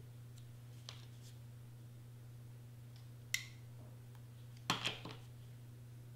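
A few light clicks and taps from handling a cardstock letter and a cordless hot glue gun on a cutting mat: a sharp click a little past three seconds in, then a short cluster of taps around five seconds. A steady low hum sits under it.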